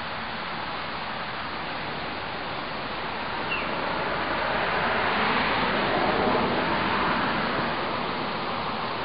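A car driving past: a hiss of tyres and engine that swells from about four seconds in and eases off near the end, over steady outdoor background noise. A brief high chirp sounds once, about three and a half seconds in.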